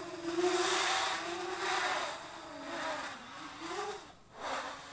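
Quadcopter's brushless motors (Redcon 2217, 2200 KV) spinning 8045 propellers, buzzing overhead in surges as the throttle changes, the pitch dipping and rising. The sound drops almost away about four seconds in, then swells again.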